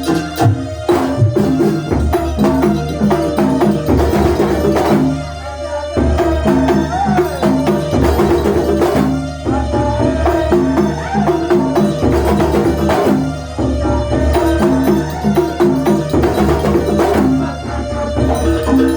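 Live Banyuwangi kuntulan music: hand drums and jingling percussion keep a steady repeating rhythm under a sustained melody, with a few brief drops in loudness as the pattern turns over.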